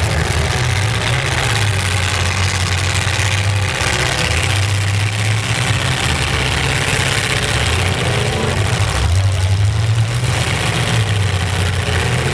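Demolition derby pickup trucks' engines running together in a steady low rumble, the engine note shifting up and down a few times as the trucks are driven.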